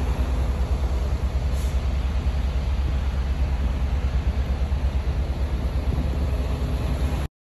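Low, steady rumble of a truck on the move, engine and road noise heard from inside the vehicle, cutting off suddenly near the end.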